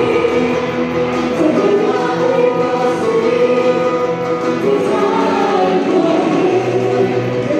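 A congregation singing a gospel worship song together, many voices in chorus, accompanied by acoustic guitar and keyboard.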